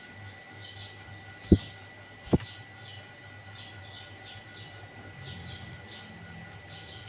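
Sooty-headed bulbul (kutilang) calling in a busy run of short, falling chirps over a steady thin high tone. Two sharp knocks, about a second apart near the middle, are the loudest sounds.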